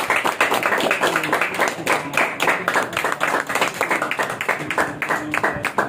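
A small group of people applauding, with many hands clapping steadily and unevenly.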